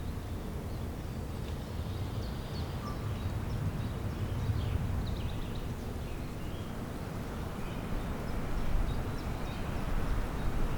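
Spring woodland ambience: faint, short bird chirps come and go over a steady low rumble that swells a little near the end.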